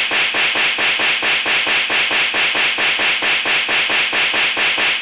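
Rapid run of hand slaps, about eight sharp smacks a second, evenly spaced and unbroken.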